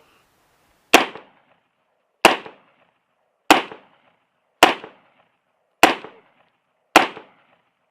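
Six gunshots from a firearm fired at a steady slow pace, about one every 1.2 seconds, each a sharp loud crack with a brief echoing tail.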